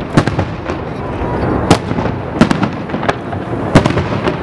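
Aerial firework shells bursting: a string of sharp bangs, roughly one every half second to second, the loudest near the end, over a continuous rumble of further reports.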